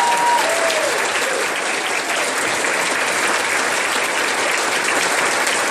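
Audience applauding steadily. A held sung note dies away in the first half second.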